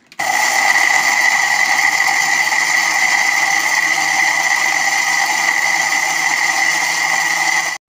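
Electric spice grinder's motor running at full speed, grinding roasted whole spices (coriander seeds, cumin, bay leaves) into powder in its glass jar. It makes a loud, steady high whine that starts suddenly and cuts off suddenly near the end.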